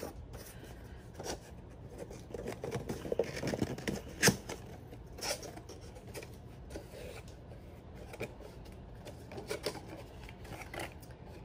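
Small cardboard box opened by hand, its flaps pulled open with scraping and rustling, a few light knocks and one sharp crack about four seconds in.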